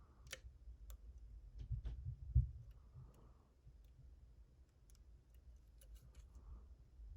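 Light, irregular metallic clicks from a lock pick working the pin stack of a Den Brass challenge lock under tension, mixed with a few low handling bumps.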